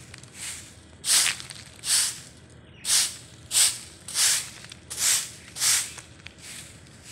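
Broom sweeping rough asphalt pavement: a run of about seven loud swishes, roughly one every half second to second, starting about a second in, with fainter strokes around them.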